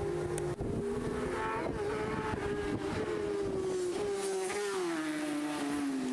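Racing motorcycle engine at high revs, its note sinking steadily in pitch over several seconds.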